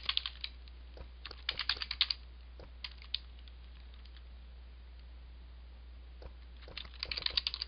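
Computer keyboard being typed on in short bursts of key clicks, with a pause of a few seconds in the middle.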